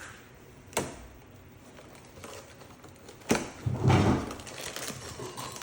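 Handling noises of a toy box and its bag: a few sharp clicks and knocks, with a louder dull bump about four seconds in.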